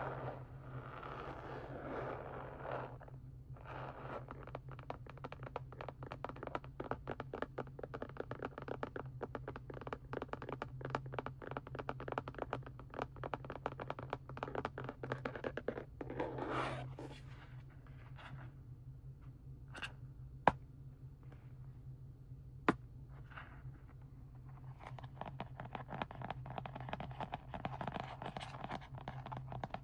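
Close-up crinkling, scratching and crackling of plastic and foil paint packaging being handled, with two sharp clicks a couple of seconds apart in a quieter stretch past the middle.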